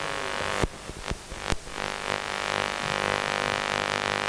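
Accompaniment music of sustained keyboard chords, held notes under a steady drone. A few sharp knocks break in during the first second and a half.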